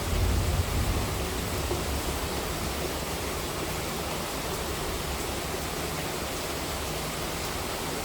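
Heavy monsoon rain falling, a steady even hiss. A low rumble of thunder dies away about a second in.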